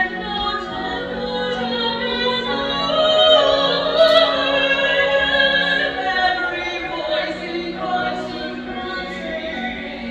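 Large massed choir singing a sustained choral passage, heard from the audience seats; the sound swells to its loudest about three to four seconds in.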